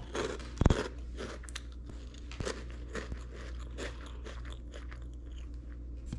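Crunchy breakfast cereal being chewed close to the microphone, with many small irregular crunches. A single loud low thump comes about half a second in.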